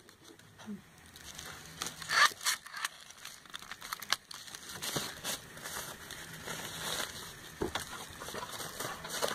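Plastic bubble wrap crinkling and clicks from handling a red plastic hand-crank emergency flashlight, irregular, with the sharpest crackle about two seconds in.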